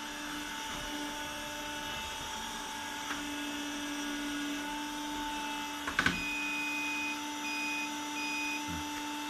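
A window-cleaning robot's suction fan runs with a steady hum as the robot moves across the glass. About six seconds in there is a short clatter of clicks, and then the robot starts giving long electronic beeps in a repeating pattern.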